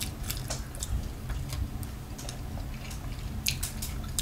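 Eating at the table: scattered light clicks and taps of a fork and knife against a ceramic plate, with quiet chewing.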